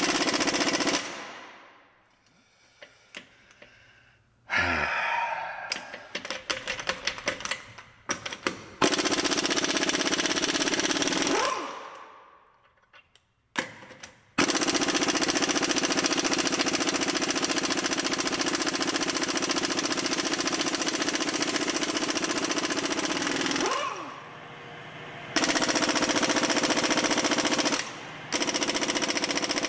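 Pneumatic impact wrench hammering on a truck wheel's lug nuts in several bursts, the longest about nine seconds, each winding down as the trigger is let go. These are the lug nuts being broken loose to pull the front wheel.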